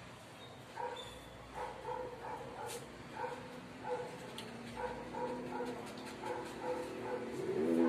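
A dog barking over and over in short yaps, about three a second, ending in a longer rising whine near the end.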